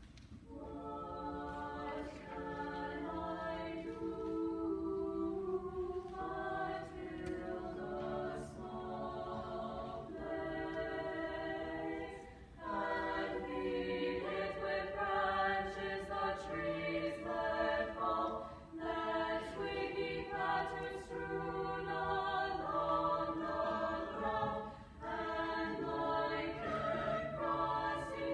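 Small high-school vocal ensemble singing a cappella in parts, in long sustained phrases with short pauses for breath between them.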